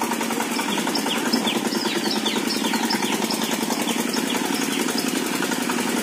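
Small engine running steadily with a fast, even putter, as the loaded vehicle is pushed through mud. Over it, a string of short, high, falling chirps comes from about half a second in until near the end.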